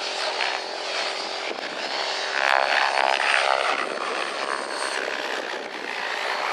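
Radio-controlled model helicopter flying low, its engine and rotor running steadily. It grows louder for about a second, a little after two seconds in.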